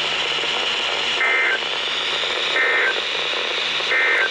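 Emergency Alert System end-of-message tones: three short, identical bursts of warbling two-tone digital data, each about a third of a second, over steady radio static hiss. They mark the end of the severe thunderstorm warning broadcast.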